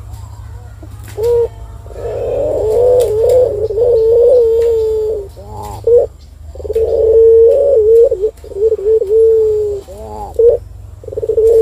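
Caged collared dove (puter) cooing in long, rolling, wavering coos of three to four seconds each. Each coo ends in a short up-and-down note, and a new coo starts near the end. A steady low hum runs underneath.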